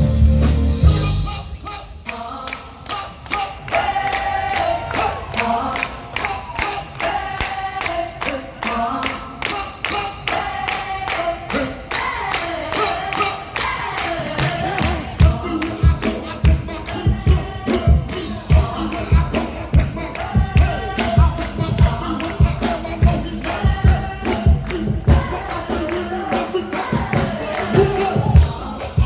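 Gospel music: a sung melody with backing voices over steady rhythmic percussion, with a bass beat of about two a second coming in about halfway.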